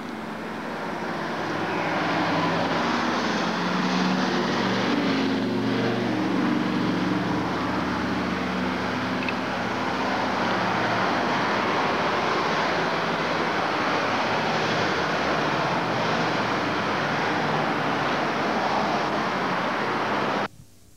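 Steady road traffic noise that swells about two seconds in, with a vehicle engine's hum passing between about three and nine seconds in; the sound cuts off suddenly near the end.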